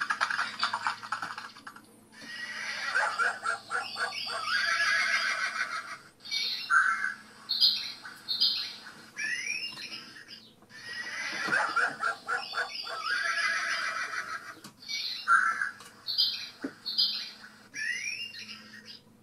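Recorded farmyard animal sounds from a model-railway sound chip: hens squawking and a horse whinnying in short repeated calls, the same sequence looping about every nine seconds.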